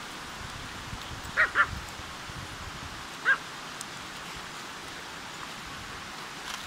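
Pomeranians barking: two quick high yips about a second and a half in, then one more about two seconds later, over the steady rush of the river.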